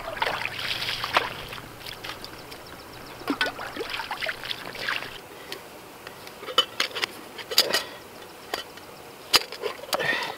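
Water sloshing as a pan is swished and rinsed in the shallows for about the first second, then scattered clinks and knocks of camp cookware being handled and packed away.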